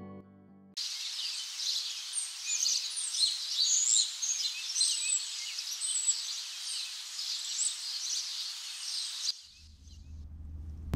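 A chorus of small birds chirping and twittering over a steady outdoor hiss. It starts about a second in and cuts off shortly before the end.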